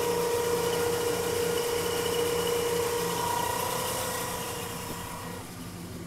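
1983 Chevrolet Caprice engine idling warm with a steady pump-like whine over the idle, a noise the owner guesses is the water pump. The whine cuts off about five seconds in.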